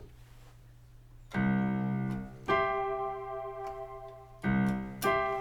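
Piano playing a C major chord in wide, spread voicings: four chords, each left to ring and fade, starting after about a second of quiet.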